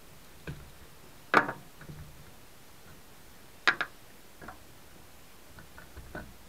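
Clicks and knocks from handling a G&G Combat Machine Raider airsoft M4 while its battery is being fitted: a sharp click about one and a half seconds in, a louder double click just before four seconds, and a few lighter taps between.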